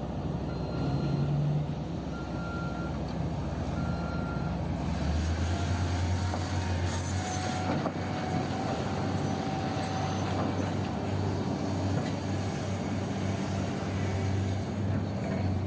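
Heavy diesel machinery running, with a backup alarm beeping about once a second for the first few seconds. Around five seconds in, the beeping stops and the engine sound changes to a deeper, steady drone.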